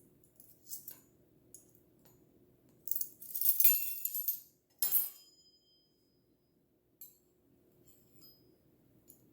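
Measuring spoon clinking against a mixing bowl while adding baking soda: several light clinks, a longer rattling scrape about three to four and a half seconds in, and short ringing clinks near five and eight seconds.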